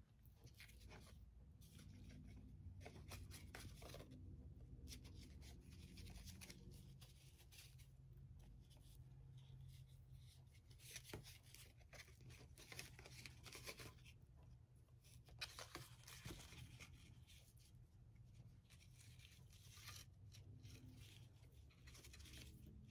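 Faint rustling of hands handling twine, fabric and a paper tag while tying the tag onto a stuffed fabric candy cane, with a few light clicks, over a low room hum.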